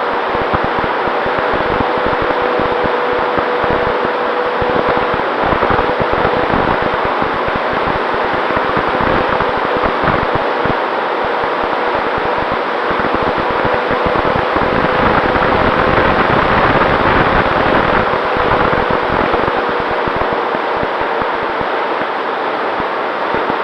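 Wind rushing over a camera mounted on an electric RC P-51D Mustang in flight, with the steady whine of its electric motor and propeller.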